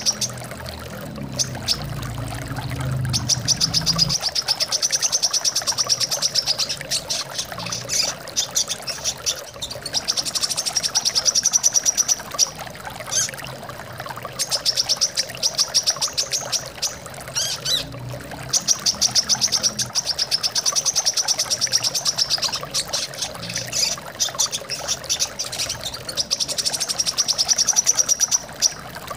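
Brown-throated sunbird singing fast, high trills of rapidly repeated notes in phrases of two or three seconds, over the steady rush of flowing water.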